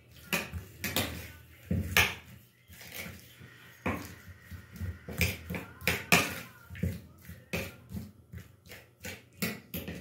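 Raw chicken drumsticks being rubbed with seasoning by hand in a bowl: irregular wet slaps and squelches, with the meat knocking against the bowl.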